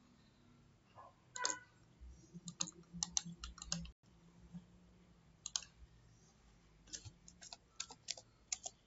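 Irregular clicks of a computer mouse and keyboard, coming singly and in quick clusters, as lines are drawn and a command is cancelled.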